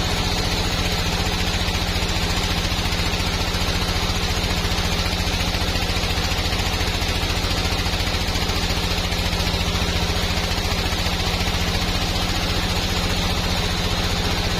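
Sawmill machinery running steadily with a low engine-like hum and a high whine over it, the pitch and load unchanging throughout.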